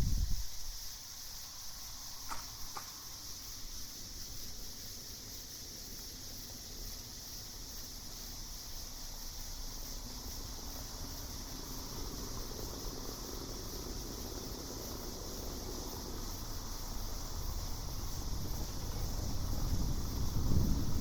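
Steady high-pitched chorus of night insects, with low wind rumble fading out at the start and building again near the end. Two short faint chirps come about two seconds in.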